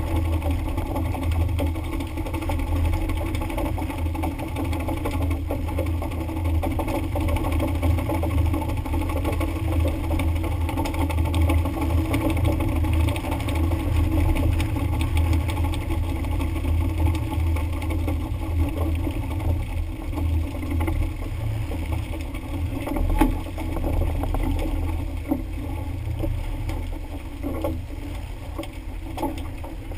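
Tuna boat's engine running steadily, a low drone, under a hiss of spraying water and sea, with a few faint knocks late on.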